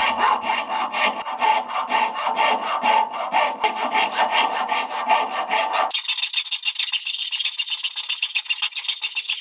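A hand tool worked back and forth across a deer cannon bone, quick rasping strokes about five a second. About six seconds in, the sound turns thinner and higher, with faster, finer strokes.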